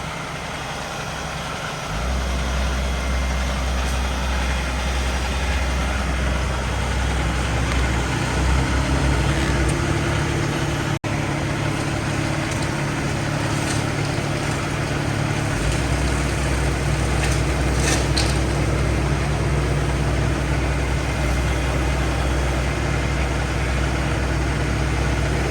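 Heavy truck engine running steadily. Its low drone strengthens about two seconds in and shifts pitch a couple of times later on.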